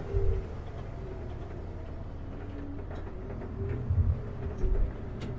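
Diesel city bus driving, heard from inside the cab: a steady engine and drivetrain rumble with a faint whine that comes and goes, and several low thuds, one just after the start and a cluster about four seconds in.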